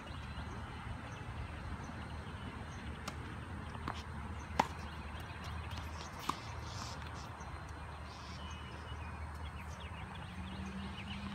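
Tennis ball struck by rackets during a rally: a few sharp pocks, the two loudest, each with a brief string ping, about a second and a half apart near the middle. A steady low rumble runs underneath.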